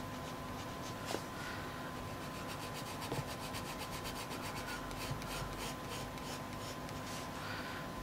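Red coloured pencil scratching on paper in quick, even back-and-forth shading strokes, several a second.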